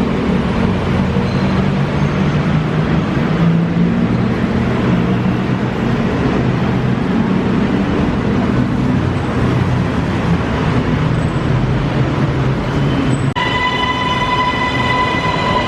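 A vehicle running with a steady rumble and shifting low engine tones; about 13 seconds in it cuts abruptly to a metro train running, with a steady high whine.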